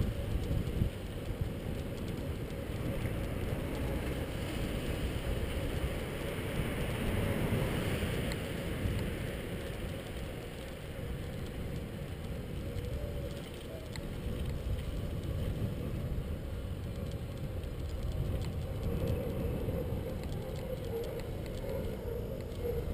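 Steady wind rumble on the microphone and road noise from a bicycle riding along a street.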